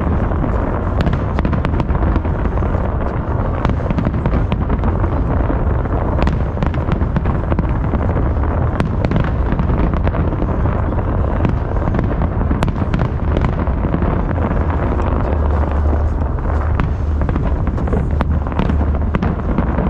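Dense barrage of aerial firework shells bursting: a continuous low rumble of booms with many sharp crackles and pops all through.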